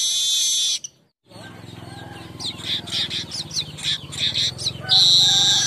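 Weaver bird (manyar) song. A loud, dense, high-pitched buzzy chatter breaks off about a second in. Then comes a run of quick short sweeping chirps over a low steady hum, and the loud buzzy song starts again near the end.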